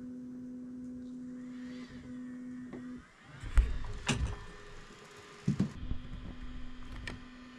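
Bambu Lab A1 Mini 3D printer's stepper motors whining steadily as it homes its axes at the start of calibration. The whine runs for about three seconds, stops, and starts again near the end, with a few loud low knocks and clicks in between.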